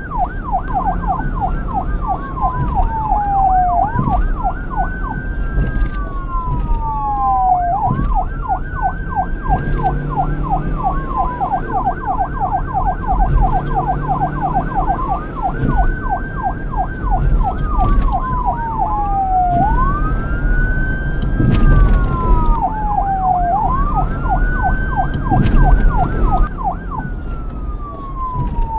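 Police car electronic sirens: one yelping in fast up-and-down sweeps while a second wails, rising quickly and sliding slowly back down every few seconds. A low rumble runs underneath.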